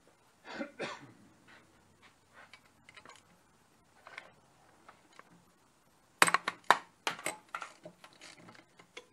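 Metal hand tools and engine parts clinking and knocking during work on a motorcycle engine's cylinder head. There are scattered light clicks, then a quick run of sharp metallic clicks about six seconds in, the loudest part.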